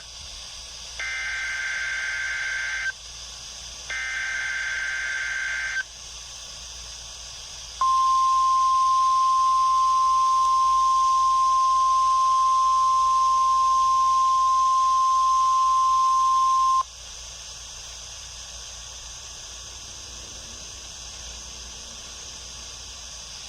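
NOAA Weather Radio weekly test signal. First come two bursts of SAME digital header data, each about two seconds of warbling two-tone chirps. Then the 1050 Hz warning alarm tone sounds as one steady high tone for about nine seconds, after which only radio hiss remains.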